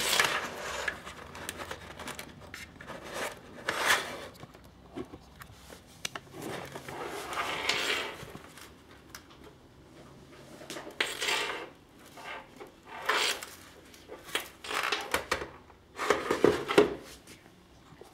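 Handling noise from a helmet with a GoPro Hero 3 in its plastic housing on a front mount: irregular rubbing and scraping with small plastic clicks and knocks as it is turned in the hands. A burst of knocks near the end, when the helmet is set down on a wooden floor.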